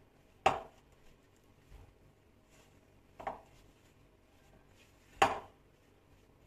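Spatula and glass mixing bowl knocking sharply three times while margarine and powdered sugar are pressed and mixed: a loud knock about half a second in, a softer one a little past the middle, and another loud one near the end.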